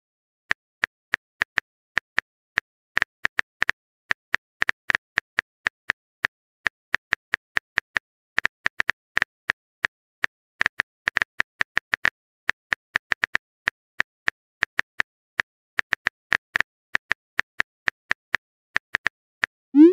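Phone keyboard typing clicks, short irregular taps about four a second, as a text message is typed out.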